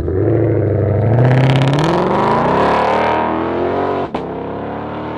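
2020 Shelby GT500's supercharged 5.2-litre V8 accelerating hard as the car pulls away, the engine pitch climbing for about three seconds. After that it is lower and steadier as the car draws off down the road.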